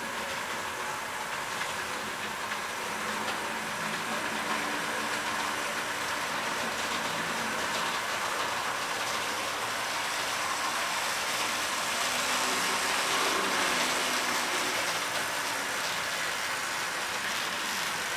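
HO scale model train running on the layout track, a steady mechanical hum and rumble that grows slightly louder as the train approaches.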